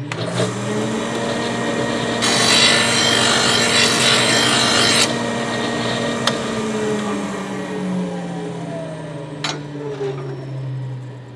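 Electric mower-blade sharpener's motor starting and running up to speed. For about three seconds a steel mower blade is ground against the wheel, a harsh grinding that takes a little metal off the heavy end to balance the blade. Then the motor is switched off and winds down, with a couple of light clicks.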